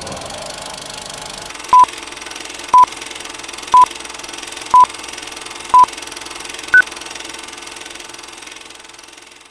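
Film countdown-leader sound effect: a steady film-projector whir and hiss with a short beep once a second, five at the same pitch and a sixth, higher beep about seven seconds in.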